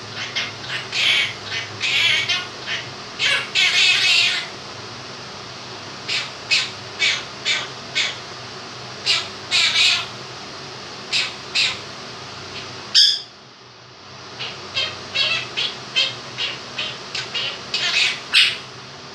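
Quaker parrot giving a rapid series of short chirps and squawks over the steady hiss of a fan. A sharp click comes about two-thirds of the way in, and the fan noise briefly drops after it.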